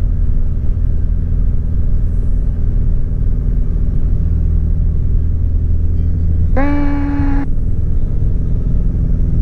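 Piper Warrior's four-cylinder Lycoming engine and propeller running at a steady high power during the takeoff roll, a loud even drone heard inside the cabin. A short held tone, nearly a second long, breaks in about two-thirds of the way through.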